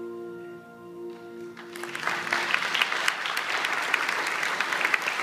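A saxophone holds the final note of a hymn, which fades out; about two seconds in, an audience breaks into applause that keeps going.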